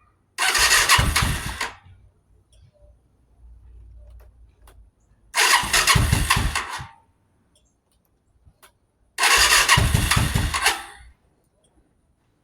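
Yamaha V-Star's V-twin engine being cranked by its electric starter with the choke pulled: three separate attempts of about a second and a half each, the engine turning over without catching and going quiet between them.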